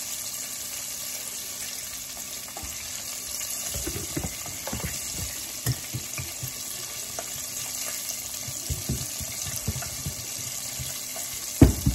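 Hot oil sizzling steadily in a skillet as breaded mushrooms deep-fry, the moisture in the mushrooms cooking out. From about four seconds in there are irregular knocks and bumps of kitchenware being handled, with a louder knock near the end.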